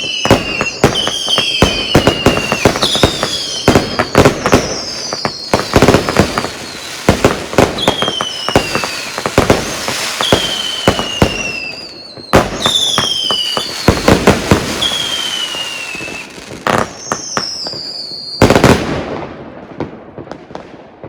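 SVEA Bandit 103-shot, 22 mm firework cake firing: a rapid string of sharp launch cracks and bursts mixed with repeated falling whistles. Near the end comes one last loud burst, and then it tails off.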